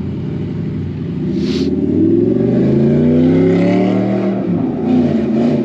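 Modified older car's engine accelerating past, its note rising to a peak and then dropping away about four seconds in.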